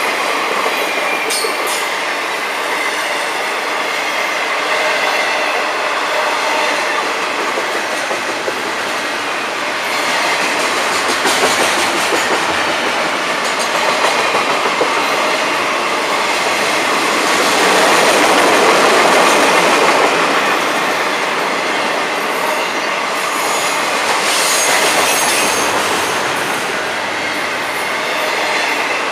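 Freight train of double-stack container well cars rolling past at close range: steady wheel-on-rail rumble and clatter with a thin high squeal of wheels, growing louder for a few seconds about two-thirds of the way through.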